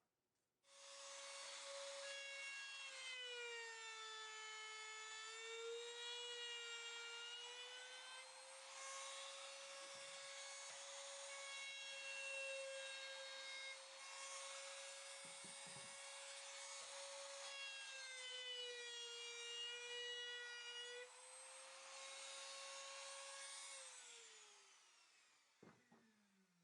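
An electric woodworking power tool runs with a high, steady motor whine, its pitch sagging now and then as it bites into the wood. Near the end it is switched off and winds down.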